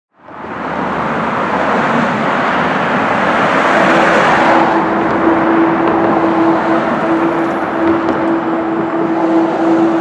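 Street traffic noise fading in, with a passing vehicle peaking about four seconds in. After that a steady hum holds under the traffic.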